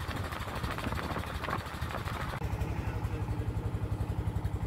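A boat engine running with a fast, even low thumping. About two seconds in the higher noise drops away and the thumping goes on steadier.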